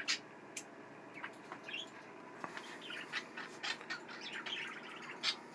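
Pet budgerigars chirping in short, high calls, scattered at first and busier from about halfway through.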